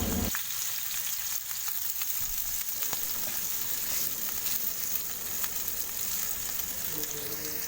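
Potato and carrot pieces frying in hot oil in a pan: a steady sizzle with scattered small crackles and pops, stopping suddenly near the end.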